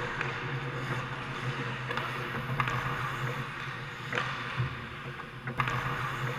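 Ice hockey play: skates scraping on the ice with several sharp clacks of sticks and puck, over a steady low hum in the rink.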